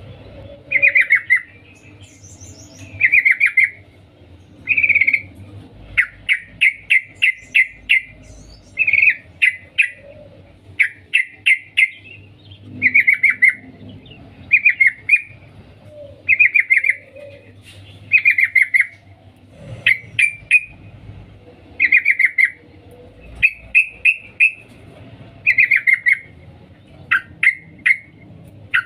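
Female yellow-vented bulbul calling the male with a 'cuk cuk' call: short bursts of quick chattering notes, repeated about every two seconds.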